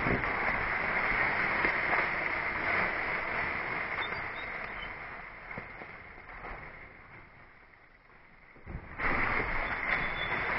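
Mountain bikes rolling through dry fallen leaves close by, a loud rustling crunch that fades away in the middle and comes back loud about nine seconds in as the next rider passes.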